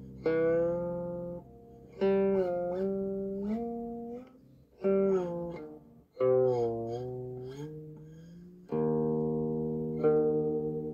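Background music: a slow melody on a plucked string instrument, single notes struck every second or two, each ringing out and fading, several bending in pitch after the pluck.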